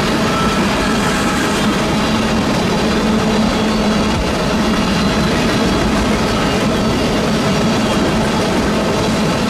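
Freight train rolling past: a steady rush and rumble of wheels on the rails, with faint ringing tones running through it.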